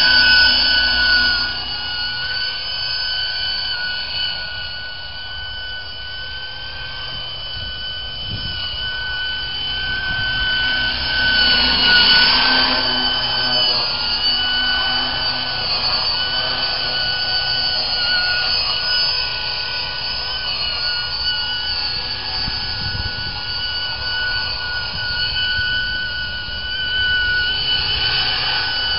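500-class radio-controlled helicopter with a six-blade fenestron tail rotor in flight: a steady high-pitched whine made of several held tones, swelling louder around twelve seconds in.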